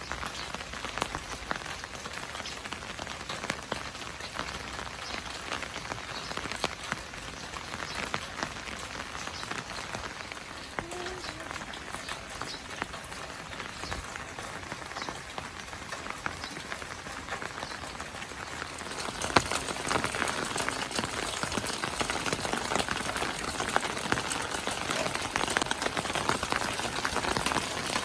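Steady rain falling, with many separate drops ticking on a surface; it grows heavier and louder about two-thirds of the way through.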